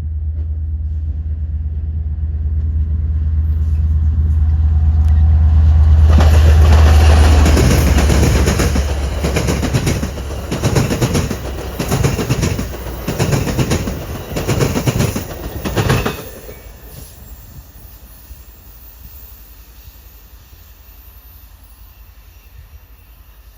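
A diesel-hauled train passing close by. A deep engine drone builds and peaks, then the cars' wheels beat out a loud clickety-clack over the rail joints. The clatter drops off sharply about two-thirds of the way through, leaving faint background noise.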